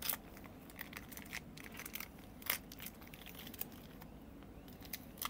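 Plastic cheese-packet wrapper crinkling softly as it is peeled open, with scattered crackles; the sharpest come at the very start and about two and a half seconds in.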